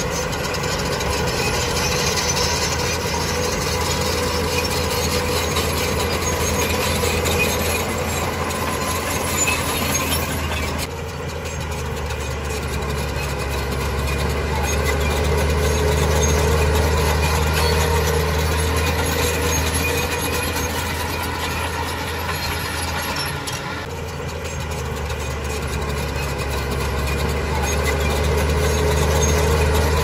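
Heavy diesel engine of a Shantui DH17C2 bulldozer running steadily as the machine works, its loudness swelling and easing. It dips briefly about a third of the way in and again about two thirds through.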